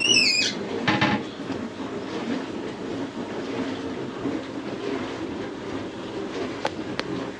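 Steady low mechanical hum, like a fan or appliance running. A brief high warbling squeak comes right at the start, a short knock about a second in, and two faint ticks near the end.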